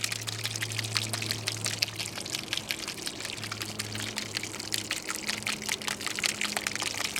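Gear-oil additive being poured from its bottle into a car's transmission filler: a steady, gurgling pour.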